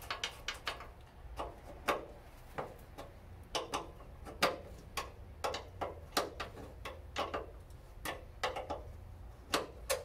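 Irregular metallic clicks and clinks of a hand wrench working the nuts off a wheelbarrow's axle brackets.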